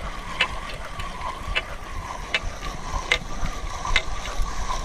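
Footsteps crunching through dry vegetation, a sharp crackle roughly once a second, over a steady thin high drone and low wind rumble.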